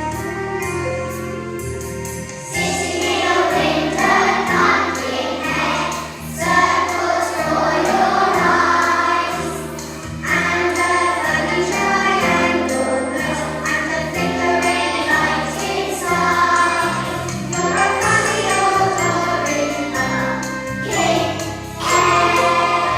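A choir singing a song over instrumental accompaniment, the voices coming in about two and a half seconds in.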